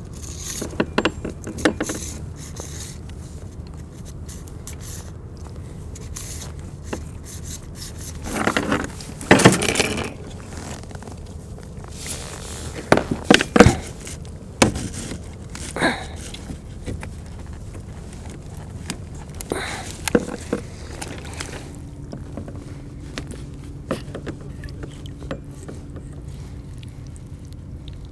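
Irregular knocks, scrapes and clicks of fishing gear being handled on a fishing kayak, over a steady low background. The loudest clatters come about eight to ten seconds in and again around thirteen to fourteen seconds.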